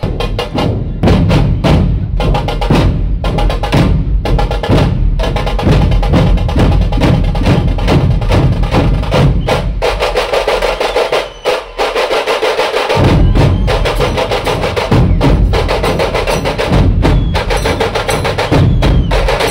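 Dhol-tasha ensemble playing loudly: large barrel dhol drums beaten in a driving rhythm under rapid, crisp rolls of tasha snare drums. The deep dhol beats thin out for a few seconds just past the middle, then come back in.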